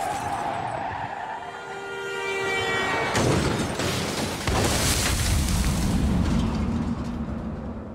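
Car-crash sound effects: a horn blares steadily for about three seconds, then a sudden crash about three seconds in. After it comes a loud rush of water gushing from a sheared fire hydrant, with a low rumble, as the car is thrown into the air.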